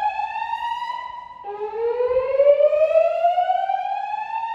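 Gentex fire alarm speakers sounding the slow whoop evacuation tone from a Notifier DVC voice system: a loud tone sweeping slowly upward in pitch. One sweep ends about a second in, and the next starts low and climbs again.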